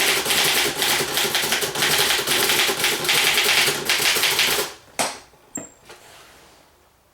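A 1940 Remington Model 4P typewriter being typed on fast, its keys striking in a dense continuous clatter. The typing stops about five seconds in, followed by two single sharp clacks.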